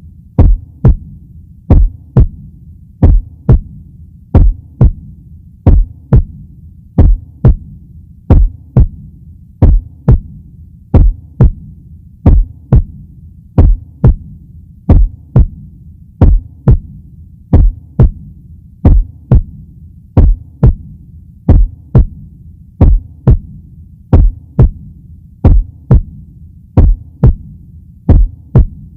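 Heartbeat sound effect: steady paired lub-dub thumps, about one beat a second, over a continuous low hum.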